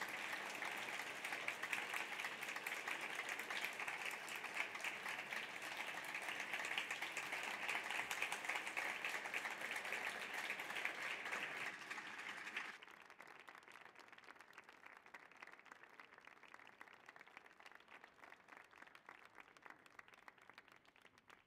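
Audience applauding: dense clapping that drops abruptly to a much lower level about two-thirds of the way through, then carries on more quietly and dies away at the end.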